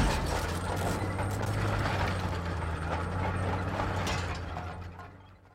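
A landmine goes off with a single sharp blast beside an armoured mine-clearing machine. The machine's engine then runs on with dense metallic clanking and grinding, fading out about five seconds in.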